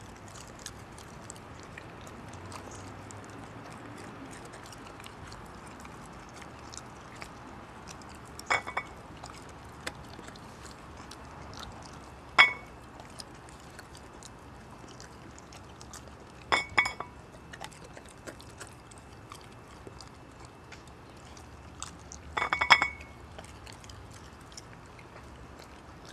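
Welsh Springer Spaniel eating sausages from a china plate: quiet chewing and licking, broken four times by sharp clinks of the plate ringing briefly.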